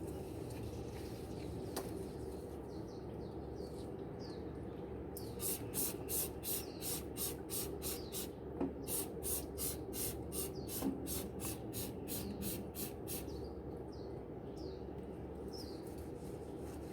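Trigger spray bottle of degreaser being pumped onto a greasy barbecue grill. It gives about twenty quick hissing squirts at nearly three a second, starting about five seconds in and stopping near the thirteenth second.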